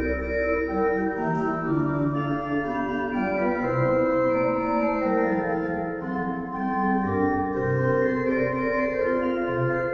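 Weimbs pipe organ playing held chords with moving upper voices over a pedal bass; a deep pedal note stops about a second in and low pedal notes return later.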